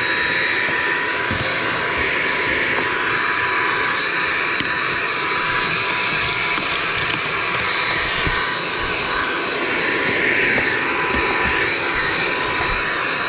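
Vacuum cleaner running steadily with a high, even motor whine, vacuuming out an opening low in a wall.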